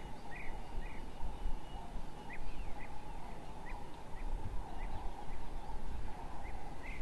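A bird chirping: about ten short, sharp notes at irregular intervals over a steady low background rumble.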